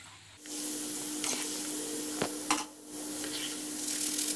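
Chana dal (split Bengal gram) deep-frying in hot ghee, sizzling steadily, with a few light clicks of a metal mesh strainer as the dal is lifted out. The sizzle dips briefly near the start and again about two-thirds of the way through, over a faint steady hum.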